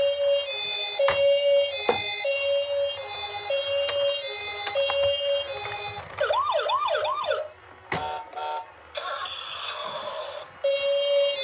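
Two-tone ambulance siren alternating between a high and a low note. About six seconds in it switches to four quick rising-and-falling whoops, and a loud sharp click and a short noisy stretch follow before the two-tone pattern returns near the end. A few fainter clicks sound over the first part.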